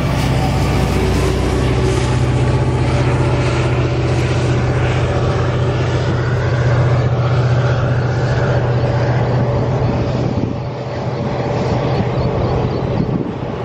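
WDP-4D diesel locomotive's 16-cylinder EMD two-stroke engine working hard as it accelerates past, with a steady low drone. Passenger coaches roll by on the track; the engine drone fades about ten seconds in, leaving the sound of the coaches' wheels.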